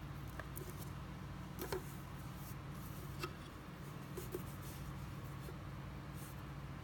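A handful of light clicks and scrapes from fingers handling a paracord fishing lure and its line, the sharpest a little under two seconds in, over a steady low hum.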